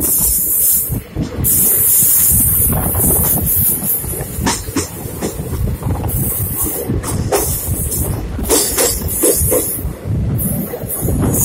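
Indian Railways passenger train running at speed, heard from the open coach doorway: a steady rumble and rattle of wheels on the track with rushing wind that comes and goes. Short wheel squeals sound several times from about halfway through.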